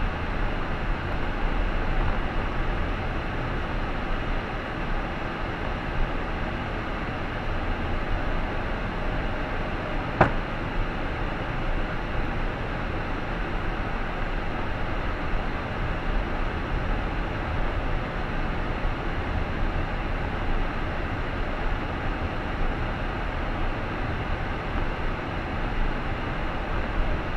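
A car driving, with a steady rumble of road and engine noise heard from inside the cabin. One sharp click comes about ten seconds in.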